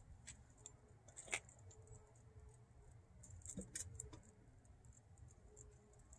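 Near silence, with faint scattered clicks and light jingling from small dogs walking about on concrete.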